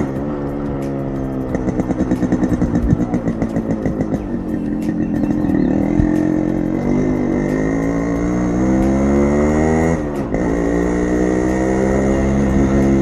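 Yamaha RX100's two-stroke single-cylinder engine held at high revs while the rear wheel spins in the dirt, the pitch sweeping up and down as the throttle is worked, with a short dip and pick-up about ten seconds in.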